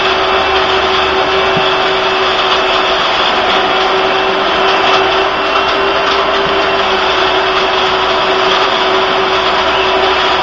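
Household vacuum cleaner running steadily: a loud, even rushing noise with a constant hum.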